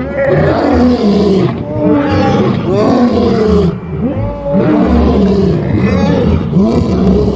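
Two male lions roaring together, a run of long, loud calls one after another with a short lull about four seconds in.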